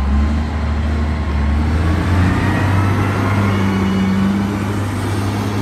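John Deere 744H wheel loader's diesel engine running steadily as the machine drives. The engine note rises a step about two seconds in.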